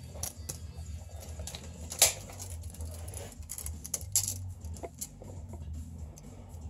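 Scattered light clicks and taps of a tape measure and a ratchet being handled, the sharpest tap about two seconds in.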